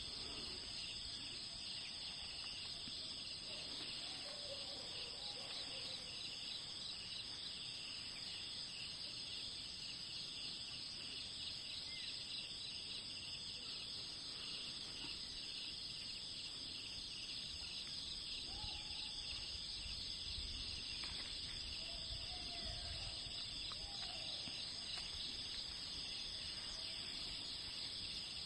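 Forest ambience: a steady, high insect chorus with a fine pulsing buzz, with a few faint, short bird calls now and then.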